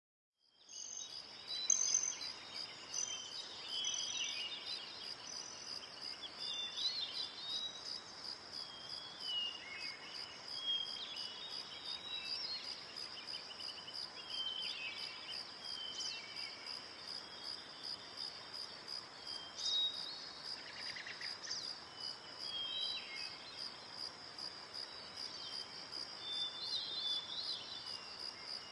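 Steady, rapid insect chirring, cricket-like, with scattered short bird chirps over it.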